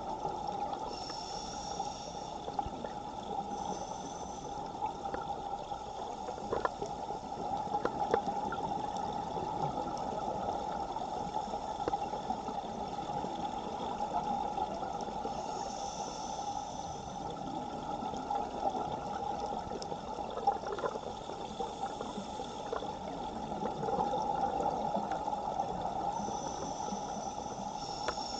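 Underwater rush of a strong current past the camera housing, a steady wash of water noise with small clicks. A scuba regulator hisses faintly a few times as the diver breathes, with some gurgling.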